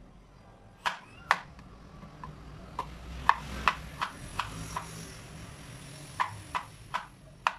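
Kitchen knife chopping through pieces of a peeled vegetable down onto a wooden cutting board: about a dozen sharp knocks at an uneven pace, with a short pause about two-thirds of the way through.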